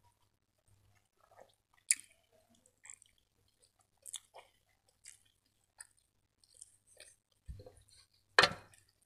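Close-miked chewing and wet mouth sounds of someone eating butter chicken and rice by hand, a run of short, irregular smacks and clicks with a few sharper ones. A low thump and then the loudest sharp knock come near the end.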